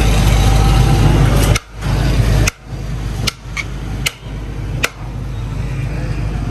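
A steel serving spoon knocks against a large metal biryani pot about six times as rice is scooped out. Under it runs a steady low hum of street background.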